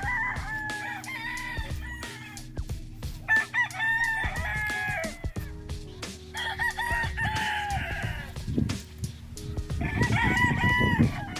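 Gamecock roosters crowing, four crows one after another, with faint steady background music underneath.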